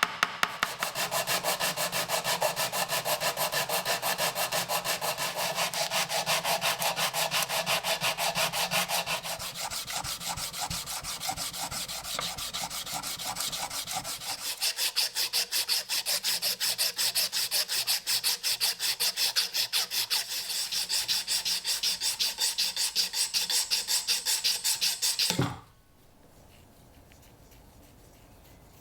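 Rapid back-and-forth hand strokes of a file or abrasive against the knife being restored, several strokes a second and very even, changing tone slightly partway through and stopping abruptly near the end.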